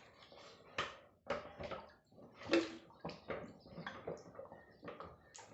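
Water poured from a small plastic bottle into the soil packed around a clay pot inside a bucket, splashing and trickling in irregular spurts as the soil filling of a pot-in-pot cooler is wetted.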